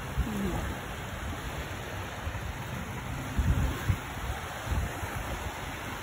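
Small waves washing onto a sandy beach, a steady hiss of surf, with a few low thumps a little past the middle.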